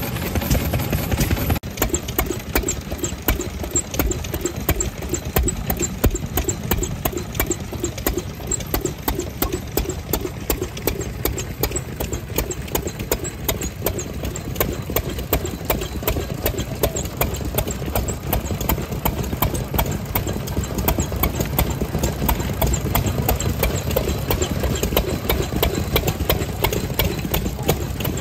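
Old stationary farm engine (nōhatsu) running at a slow, even firing beat, each stroke heard as a separate knock. The sound changes abruptly a little under two seconds in.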